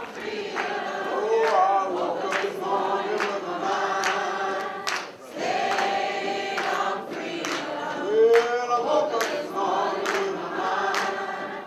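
Choir singing a slow song in long held notes, with a short break between phrases about five seconds in.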